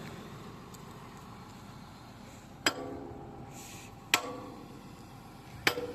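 Three ringing metal-on-metal strikes, about a second and a half apart, as the main pin of an excavator bucket is driven in through thick steel shims.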